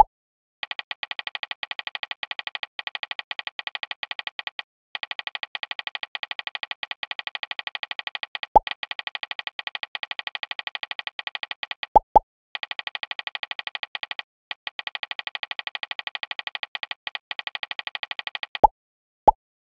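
Fast, even ticking of a phone's on-screen keyboard as chat messages are typed, stopping briefly now and then. Several short pops that drop quickly in pitch, two of them close together about twelve seconds in, as messages are sent and received.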